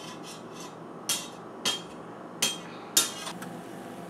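An egg knocked against a hard kitchen edge to crack it: four sharp knocks, each about two-thirds of a second apart.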